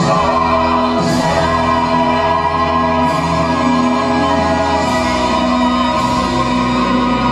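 Full cast of a stage musical singing a loud sustained final chord together with the pit orchestra, which starts suddenly and is held throughout, with four accented crashes ringing over it.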